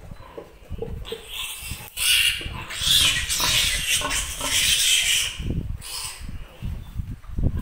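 Piglet squealing loudly while held and handled, starting suddenly about two seconds in and running for a few seconds, with a shorter squeal after it. Low bumps and rustles from the handling come before and after.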